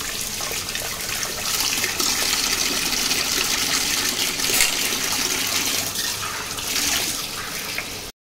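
Kitchen tap running, its stream splashing into a small steel saucepan and onto the stainless steel sink as utensils are rinsed under it. The water sound swells and eases a little and cuts off suddenly near the end.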